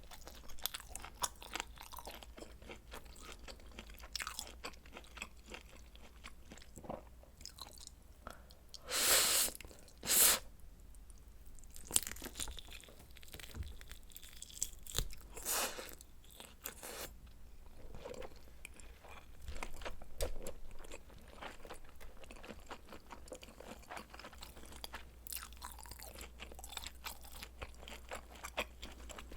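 A person eating spicy stir-fried noodles and kielbasa sausage: chewing and biting with many small crunchy clicks. There are a few louder, longer bursts, two close together about a third of the way in and one about halfway through.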